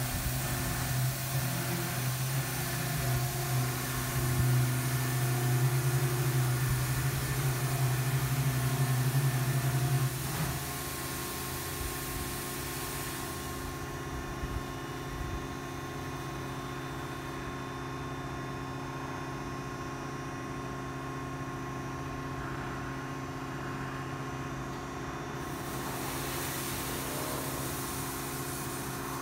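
Futura Millennium touchless car wash equipment running: a steady mechanical hum with a hiss. The hum drops sharply in loudness about ten seconds in, and the hiss fades out for several seconds before coming back near the end.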